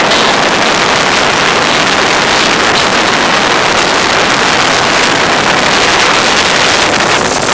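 Loud, steady rushing of wind across the microphone and water along the hull of a sailboat under sail in choppy seas.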